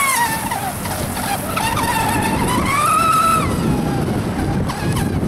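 RC Triton speedboat running flat out, its high motor whine dropping in pitch as it passes, climbing again, then falling away near the end, over the hiss of its spray on the water.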